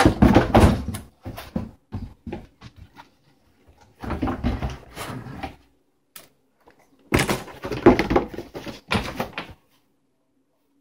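Packaging being handled close to a phone lying on the table: plastic bag and box rustling and knocking, in three bursts that stop a little before the end.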